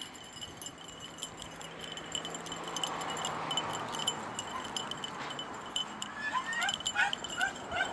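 Faint, high, chime-like tinkling, and from about six seconds in a quick run of short, high yips from beagles hunting for a rabbit trail.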